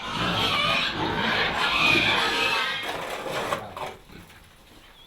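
Pigs squealing and grunting in their pen for about four seconds, then dying down.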